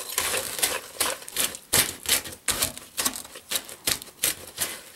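Metal whisk beating butter, sugar and molasses in a plastic bowl, its wires clicking against the bowl's sides about three times a second.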